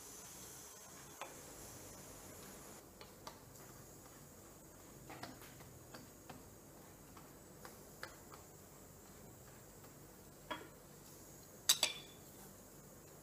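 Scattered light taps and clicks of a silicone basting brush and kitchen utensils on a griddle of chapathis. Near the end comes a sharp double clatter of steel kitchenware, the loudest sound.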